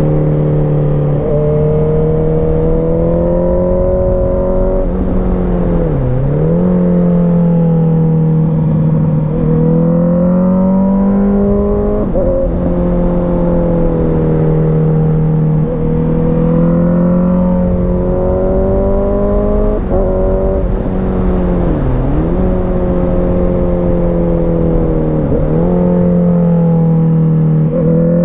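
Sport motorcycle engine under way through a run of bends, its pitch rising and falling with the throttle and dipping sharply and briefly several times at gear changes, over wind rush.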